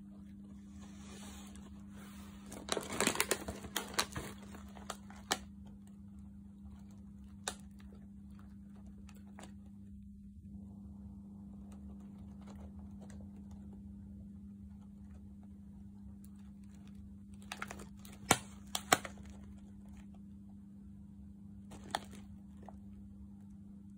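Plastic potato-chip bag crinkling as it is handled, in short bursts of crackles and clicks: a cluster about three seconds in, scattered single clicks, and another cluster near the end. A steady low hum runs underneath.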